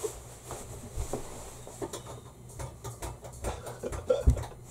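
Scattered small knocks, clicks and rustles from a person shifting about close to the microphone, over a steady low hum.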